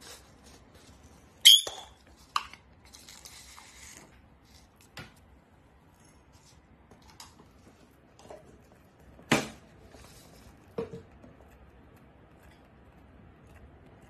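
A few sharp clinks and knocks of a plastic pellet-food jar and a ceramic bird-food dish on a wooden table, with a brief rattle of pellets between them; the loudest clinks come near the start and again past the middle.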